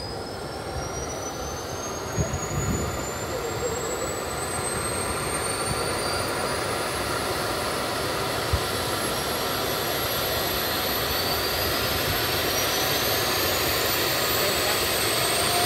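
Air ambulance helicopter's twin turbine engines starting up: a high whine that climbs steadily in pitch as the engines spool up, over a steady rush that grows gradually louder.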